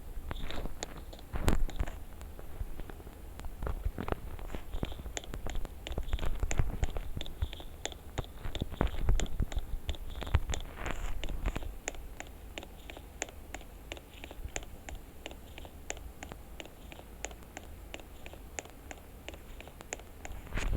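Close handling noise: scattered clicks, taps and scraping. From about halfway through, a run of faint, evenly spaced ticks comes about three a second.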